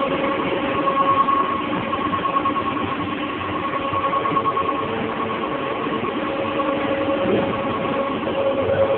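Dewatering screw press running: a steady mechanical drone with a constant two-note hum.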